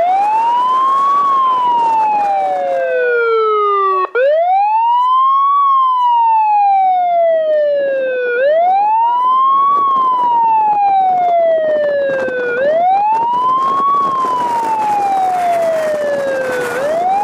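Emergency vehicle siren in wail mode, sounding a tsunami evacuation warning: a loud tone that rises quickly and then falls slowly, repeating about every four seconds, four times. A second, lower siren tone falls alongside it briefly about two to four seconds in.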